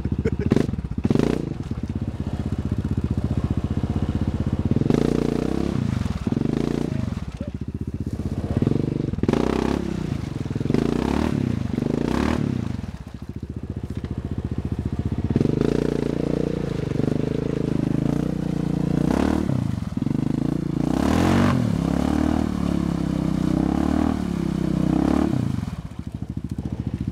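ATV engine revving in repeated surges of throttle as the quad is worked through a slushy, half-frozen creek.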